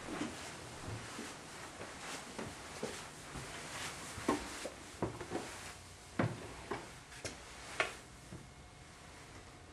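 Irregular knocks and clicks in a small room, some with a short creaking tail, the strongest about six and eight seconds in, thinning out near the end.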